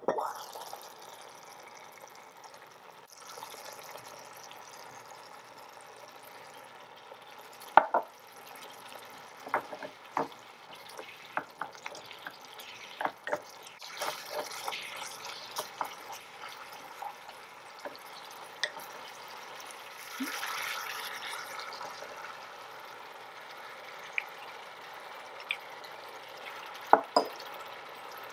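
Beef strips simmering and sizzling in a tiny metal pan, a steady hiss, with a wooden spoon clicking and scraping against the pan as they are stirred. Coconut milk is poured in partway through.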